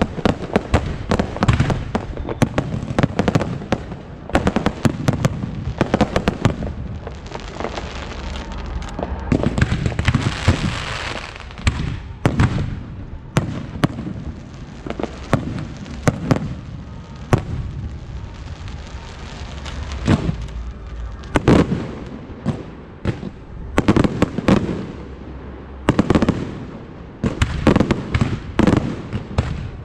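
Aerial fireworks bursting in sharp, irregularly spaced bangs, with a stretch of hissing crackle about ten seconds in and a denser run of bangs near the end.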